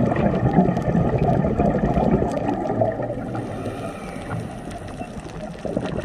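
Uneven rumbling water noise with faint scattered clicks, easing off in the second half.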